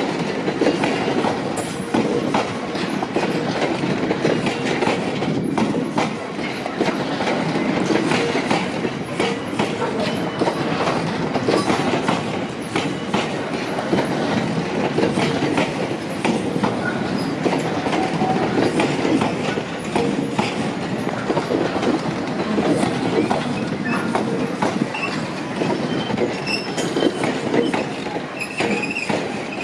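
A rake of bogie tank wagons rolling past at close range: a steady rumble of steel wheels on the rails, with repeated clickety-clack as the wheels run over the rail joints.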